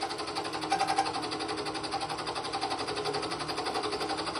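Milling machine spindle turning an end mill at about 600–700 rpm, taking a roughing cut in a cast-iron casting: a steady mechanical whir with a fast, even rhythm.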